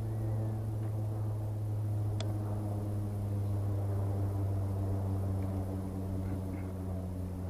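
A steady low hum with a few overtones over the rush of a shallow river running past a gravel bank, with one sharp click about two seconds in.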